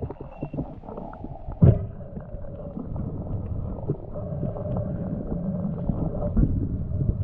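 Muffled underwater sound through a camera housing: a low rumble with knocks and clunks as a speared flatfish is gripped on the spear shaft. The loudest knock comes about one and a half seconds in, and a faint steady hum runs underneath.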